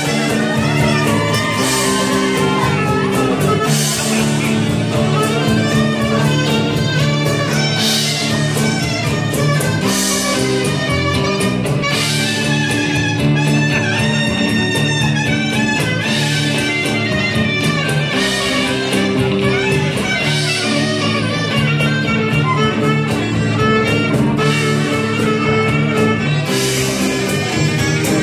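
Live band music: an acoustic guitar and a clarinet playing a tune over bass guitar and drums, with cymbal strokes every couple of seconds.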